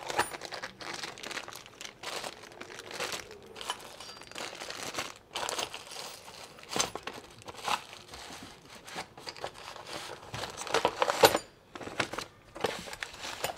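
Plastic hardware bags crinkling and a cardboard box rustling as they are handled and unpacked, in an irregular run of crackles with a few louder crinkles near the end.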